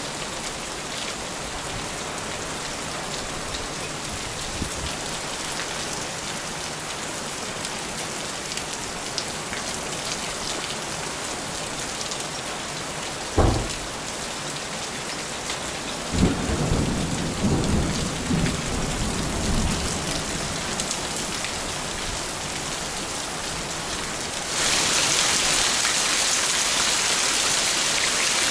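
Heavy rain falling steadily, with a sharp thunderclap about halfway through and rolling thunder rumbling a few seconds later. The rain grows louder near the end.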